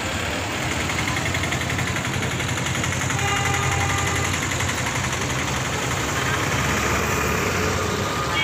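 Street traffic with vehicle engines running close by, a steady rumble. A steady held tone sounds for a second or so about three seconds in.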